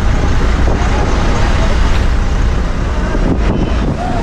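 Bus in motion heard from inside the cabin: a steady, loud engine and road rumble.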